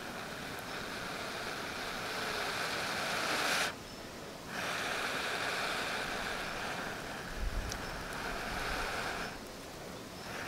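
Long, steady breaths blown into a smouldering bundle of dry-grass tinder to coax it into flame: a breathy hiss in two long blows, broken by a short pause for breath about four seconds in and again near the end.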